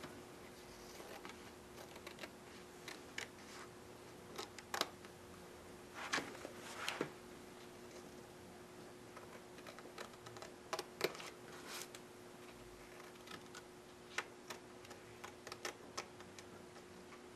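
Scissors snipping around the edges of a vinyl decal on its backing paper: irregular short snips and clicks, with a faint steady hum underneath.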